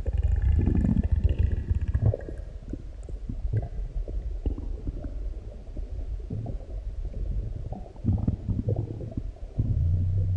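Human stomach digesting a large meal, with deep growls and gurgles. The low rumbling is crackly and loudest in the first two seconds, then swells again near the end.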